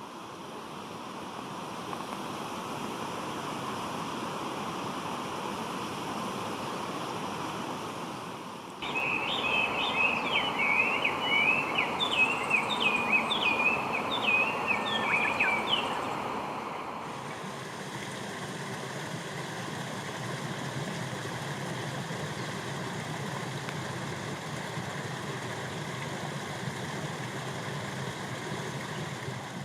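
Steady outdoor background noise. About a third of the way in, a small bird sings a quick run of about a dozen short chirping notes lasting some seven seconds. The background noise changes abruptly twice.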